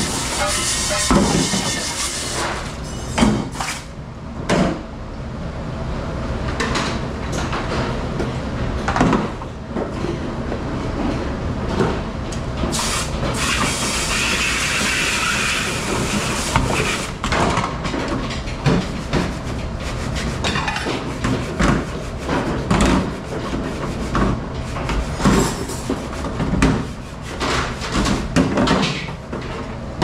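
Commercial pre-rinse spray nozzle hissing steadily as it sprays water onto stainless steel pots and pans, with frequent clanks and knocks of metal pans and dishes being handled.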